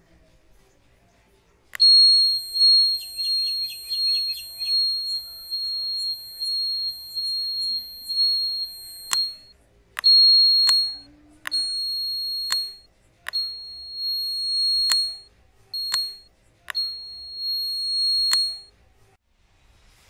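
Electronic buzzer of a homemade wireless calling bell, built from an old RC car's remote and receiver, sounding a steady high-pitched tone while the bell switch is held. One long buzz of about seven seconds, then five shorter buzzes of varying length.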